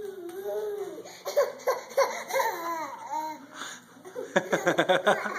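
A toddler babbling and squealing in high, sing-song arcs, then a quick burst of laughter about four seconds in.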